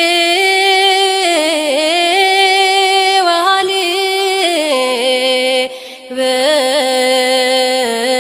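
Ethiopian Orthodox mezmur sung by one voice in long held notes with ornamented turns. The melody steps down to a lower pitch about halfway through, and there is a short breath break around six seconds in.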